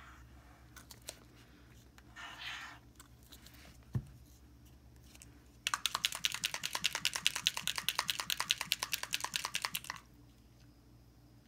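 Small bottle of gold metallic alcohol-ink mixative shaken hard, its mixing ball rattling about ten times a second for some four seconds, then stopping. Before that, a brief hiss and a single dull thump.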